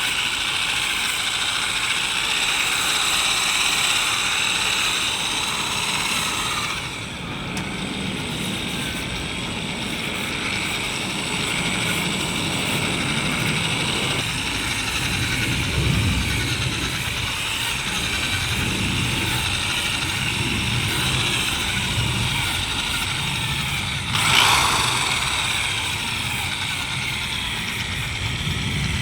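Electric drill spinning a sanding disc against a plastic headlight lens, run with the trigger about halfway down; a steady whirring grind. It eases off briefly about seven seconds in and surges for a moment about twenty-four seconds in.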